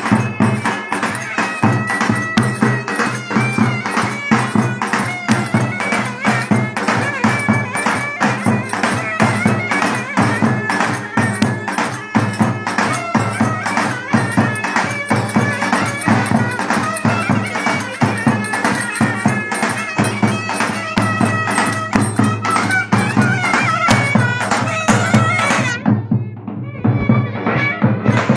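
Live Turkish wedding dance music: clarinets playing a winding melody over fast, steady percussion. The treble briefly drops away near the end.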